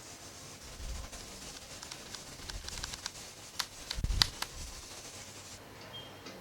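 Keys of a Keychron K10 mechanical keyboard being pressed: a scattered run of sharp clicks with a few dull thumps, busiest and loudest around four seconds in.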